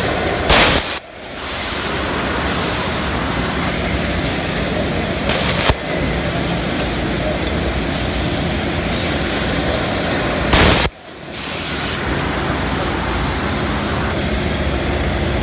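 Fancy-yarn bobbin winding machine running with a steady, loud noise. Three short, louder bursts of hiss come at regular intervals about five seconds apart, near the start, about the middle and about two-thirds through.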